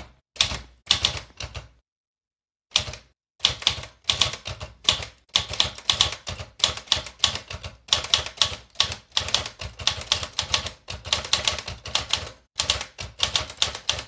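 Underwood 315 manual typewriter being typed on: typebars striking the paper in a quick, uneven run of sharp clacks, several a second, as a sentence is typed. The typing stops for about a second near the start, then runs on without a break.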